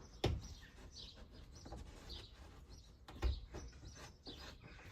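Two sharp knocks about three seconds apart as plastic interior trim is worked loose, with birds chirping in short calls throughout.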